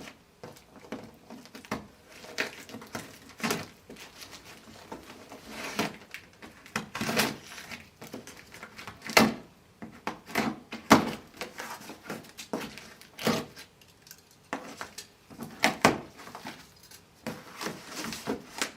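A cardboard shipping box being opened and handled by hand: irregular scrapes, rustles and knocks of cardboard and packing.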